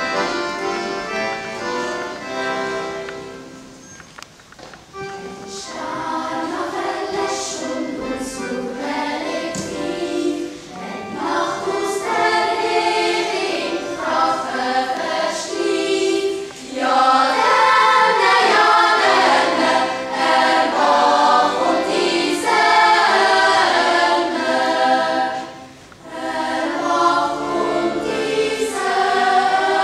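A Swiss yodel choir singing in several-part harmony, with short breaks between phrases about four seconds in and near the end.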